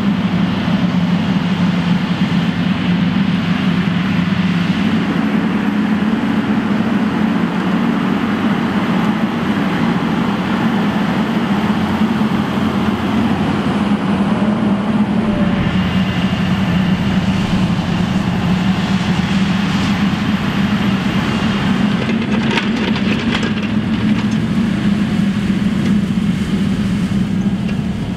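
CLAAS Xerion 5000 Trac tractor's V8 diesel running steadily under heavy load, pulling a Horsch Joker disc harrow through stubble, with a continuous rushing noise from the discs and soil. A few brief rattles come about three quarters of the way through.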